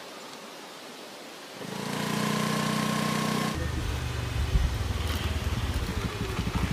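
Motor scooter engine: a steady hum comes in as it rides up, then about halfway through it turns into a close, rapid low putter as the scooter slows and idles.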